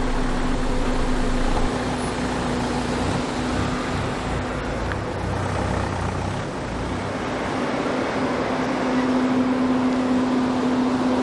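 Road traffic: cars running and driving by, with a low rumble that swells about three seconds in and fades by seven seconds, over a steady hum.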